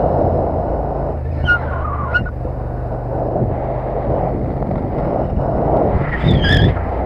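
Motorcycle engine running steadily on the road, with wind and road noise. A few brief high whistling tones come through about a second and a half in and again near the end.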